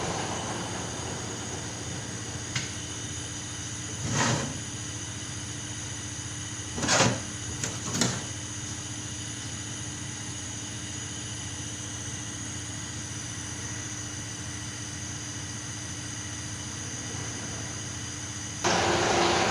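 Steady machine hum with a constant tone, broken by a few brief noises around four and seven to eight seconds in; the hum jumps louder near the end.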